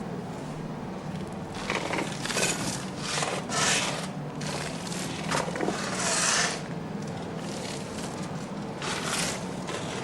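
Shovels scraping and soil being shovelled into the pit around a new hammer block, in a run of irregular scrapes in the first half and another near the end, over a low steady hum.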